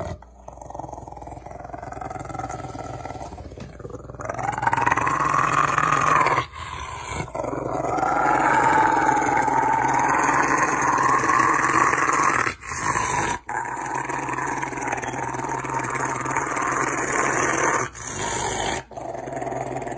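Rottweiler growling in long, drawn-out grumbles that rise and fall in pitch, getting louder about four seconds in and broken by a few short gaps.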